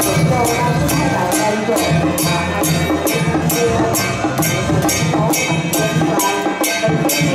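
Loud temple procession music: drums and percussion strike a steady beat, about three strikes a second, under a wavering melody.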